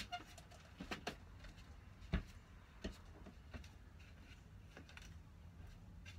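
Faint footsteps on a hard floor as a person walks away, heard as soft irregular taps and knocks over a low background hum, with one louder thump about two seconds in.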